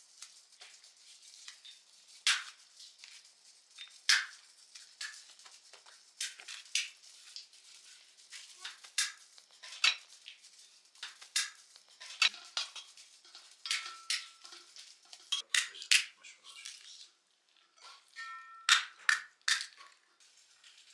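Dry flatbread being torn by hand into pieces over a metal pan: a long run of crisp crackles and light clinks, some louder than others.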